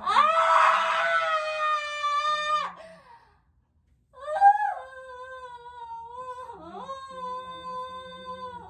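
A woman in labour screaming in pain: a loud, high-pitched wail lasting nearly three seconds, then after a brief silence a quieter, drawn-out wail that breaks once and carries on.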